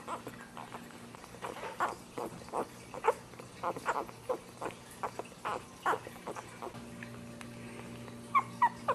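Newborn puppies squeaking and whimpering while nursing: short, high squeaks come irregularly, several a second in the middle, with a couple of clearer, longer squeaks near the end.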